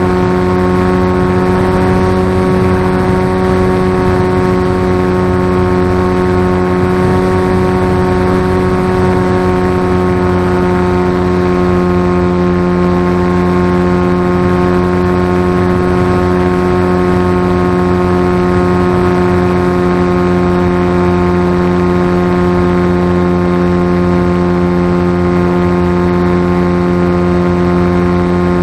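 RC flying wing's motor and propeller heard from the onboard camera, running at a steady cruise setting as a loud, even drone with a constant pitch and many overtones. A noisy rush of airflow runs underneath.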